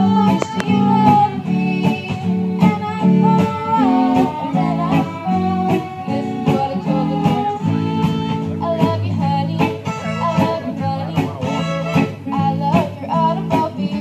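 Fiddle band playing a country tune: a sliding, wavering lead melody over strummed acoustic guitar chords with a steady beat.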